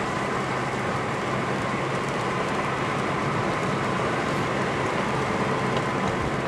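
Steady engine and tyre noise heard inside a moving car's cabin at an even speed, with a constant low hum.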